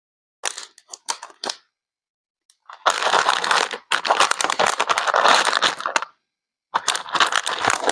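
Crackling, crunching noise in bursts: a few short crackles about half a second in, then a long dense crackling stretch, and more crackle near the end.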